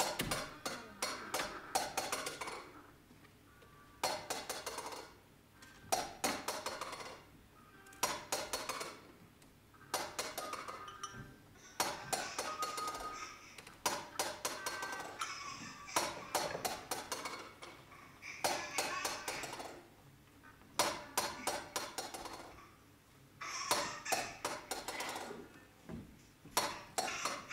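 Clinking and clattering of hard objects, in bursts that come about every two seconds, mixed with scattered instrumental notes.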